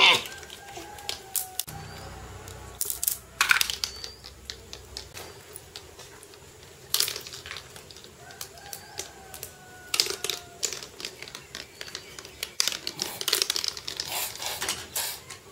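Plastic toy train track pieces and toy train cars clicking and clattering against a tiled floor as a toddler handles them, in irregular sharp knocks with louder clusters near the start, about three seconds in, about seven and ten seconds in, and near the end.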